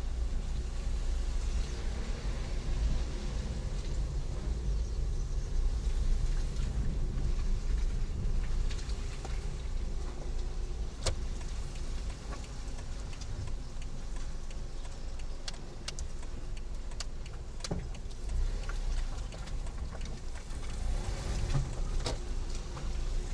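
Car driving, a steady low engine and road rumble with scattered sharp clicks through the middle of the stretch.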